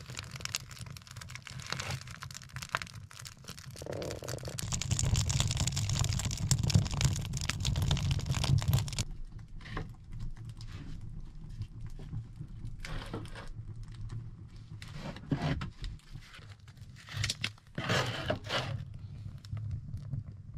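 Wood fire burning in a small steel stove firebox, with rustling and crackling as wood and bark are handled and fed in through the open door. Dense rustling for the first half, then scattered sharp snaps and knocks.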